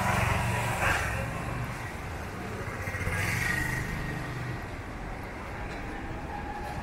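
Street traffic: motor vehicle engines passing close by, loudest in the first second and again about three seconds in.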